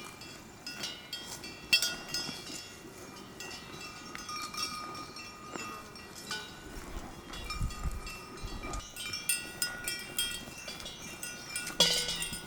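Metal bells on grazing cattle clinking and ringing at irregular moments as the cows move.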